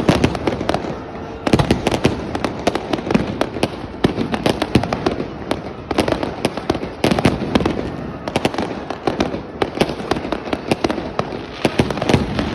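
Firecrackers going off: a dense, irregular run of sharp bangs and crackles, several a second without a break.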